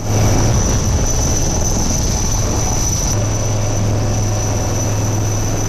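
Helicopter running steadily, a loud low hum under a rushing noise with a thin high whine; the sound shifts slightly about three seconds in.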